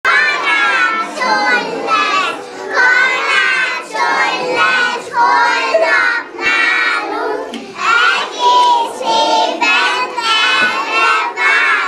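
A group of young children singing a song together in unison, phrase after phrase.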